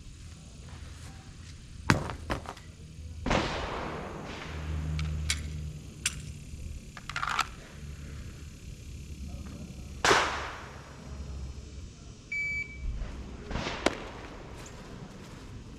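Pistol gunshots fired a few seconds apart, each sharp crack trailing off in a short echo; the loudest come about two seconds in and around ten seconds in.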